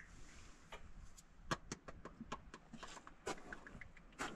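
Faint, irregular light clicks and taps of hands handling spark plug wires and ignition parts on a truck engine.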